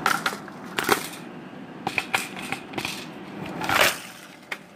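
Irregular sharp clicks and knocks, about a dozen, from a Nerf Rival blaster being handled and fired, with a longer rustling sound about four seconds in.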